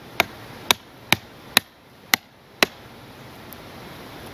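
Hammer blows on a steel tool, driving it into the ground to make a hole for a solar path-light stake: six sharp, ringing strikes about two a second, stopping a little past halfway.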